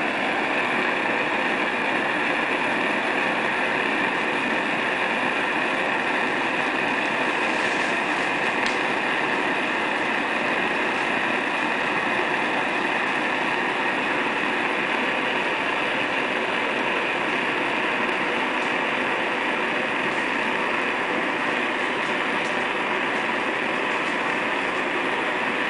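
Sievert propane soldering iron's burner running with a steady, even hiss, the flame closed inside the head.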